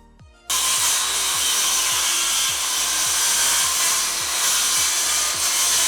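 Power saw cutting through wood, starting abruptly about half a second in and running steadily at full loudness.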